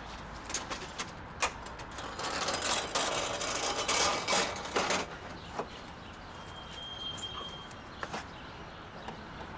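Clicks and metallic rattling, with a longer burst of scraping rattle about two to five seconds in: a locked door being tried and shaken.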